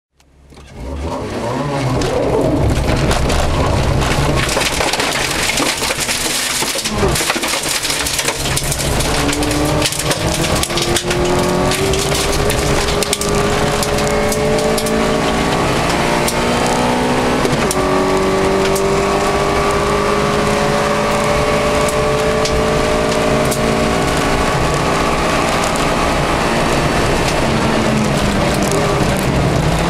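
1984 Toyota Corolla FXGT's twin-cam four-cylinder engine pulling hard, its note climbing in each gear and dropping back at three upshifts. Loose gravel crunches and rattles under the tyres and against the underside.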